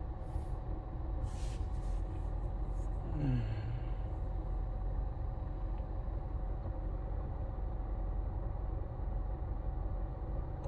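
Steady low rumble inside a car's cabin with the engine idling. About three seconds in comes a short, low, falling murmur from a man's voice.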